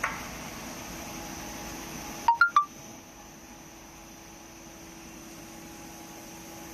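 Three quick electronic beeps, each at a different pitch, over the steady hum of a running cylindrical grinding machine; the hum drops slightly just after the beeps.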